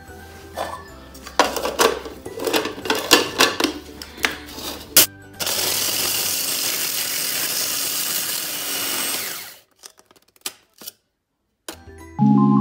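Clatter of vanilla cookies and the plastic bowl being handled as they are loaded into a food processor. Then the food processor runs steadily for about four seconds, grinding the cookies to fine crumbs, and stops suddenly. Music comes in near the end.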